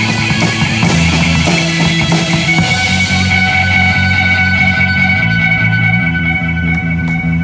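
Live rock band playing loud: electric guitars and bass over a drum kit. About a third of the way in, the cymbal wash thins out and a steady high tone is held over the changing low notes.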